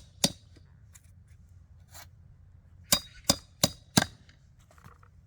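Sharp knocks of a knife blade being struck into a chunk of kudzu root to split it, with a slight metallic ring: one strike, then after a pause four quick strikes about a third of a second apart.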